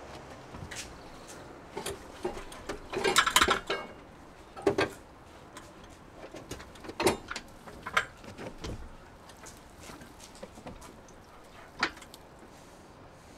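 Scattered clunks, knocks and rattles of a Ducati Panigale V4R being rolled backwards out of a van toward an aluminium loading ramp, with the loudest burst of clatter about three seconds in and smaller knocks after it.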